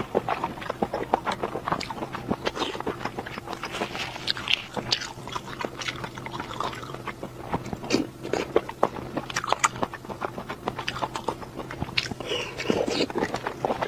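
Close-miked eating sounds: a person biting and chewing skewered food from a tray of chili oil, a dense run of small mouth clicks and smacks.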